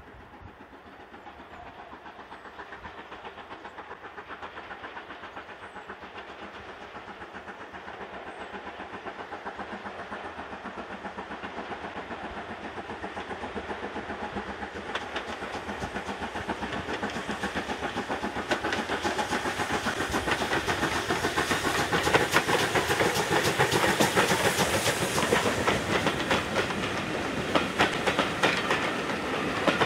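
A steam-hauled train approaching, growing steadily louder, with a rapid clatter of wheels on the rails and a hiss that is loudest near the end.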